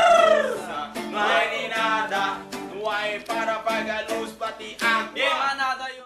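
A song sung in Chavacano, the Spanish-based creole of the Philippines, with a plucked-string accompaniment.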